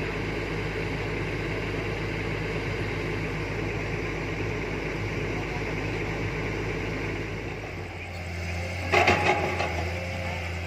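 Heavy diesel engine running steadily at idle, a low drone. About eight seconds in it gives way to a different engine hum, and a second later comes a short burst of loud knocks and clatter.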